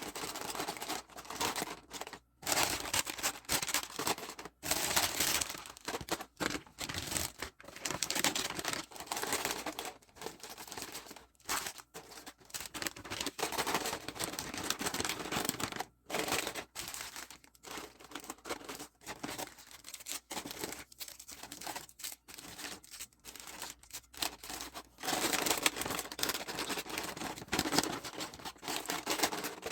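Packaging being handled, crinkling and tearing, in an irregular run with short pauses.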